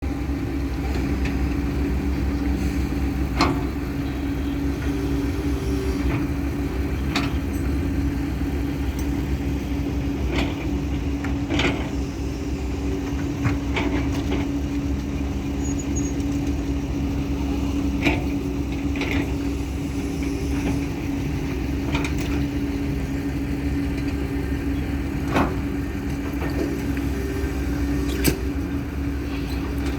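Excavator engine running steadily while digging, with a dozen or so sharp knocks scattered every few seconds.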